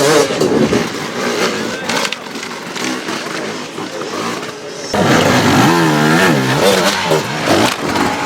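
Enduro motorcycle engines revving in repeated throttle blips, the pitch rising and falling. A louder bike comes in about five seconds in.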